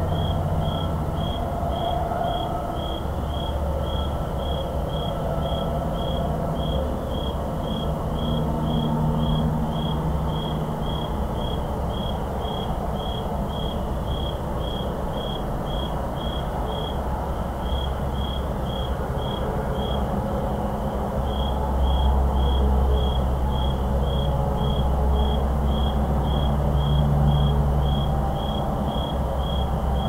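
A cricket chirping steadily in short high pulses, about two chirps a second, over the low rumble of distant highway traffic, which gets louder about two-thirds of the way through.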